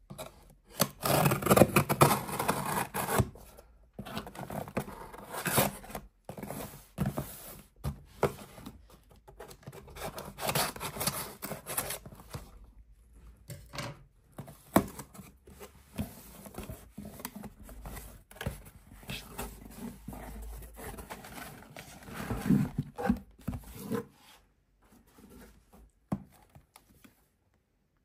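Shrink-wrapped headphone box being handled and shifted on a wooden tabletop: irregular rustling and scraping, growing sparse and faint near the end.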